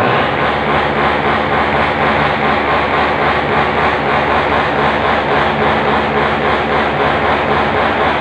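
Small motorcycle engine running loudly, held at steady revs with an even, unbroken tone.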